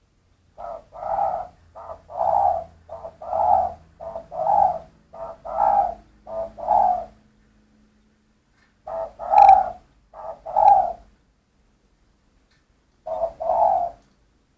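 A dove cooing in runs of short and longer coos, about two notes a second. It calls in three bouts: a long run that stops about seven seconds in, a short run a couple of seconds later, and a brief one near the end.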